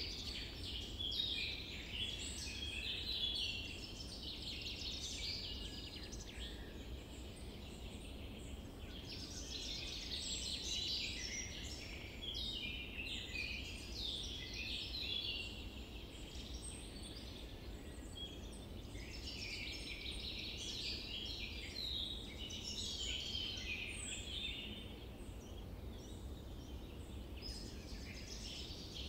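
Small birds singing and chirping in quick overlapping phrases, in waves that swell and fade every few seconds, over a steady low rumble.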